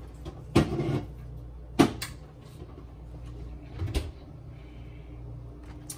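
Four separate clunks and clicks of drink cans being handled and put away, the sharpest and loudest about two seconds in, over a low steady hum.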